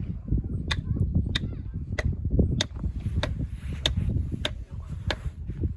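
Sharp knocks repeating evenly, about three every two seconds, over a steady low rumble.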